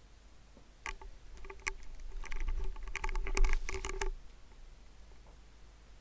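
Quick, irregular taps and clicks of thumbs on a smartphone, from about a second in until about four seconds in.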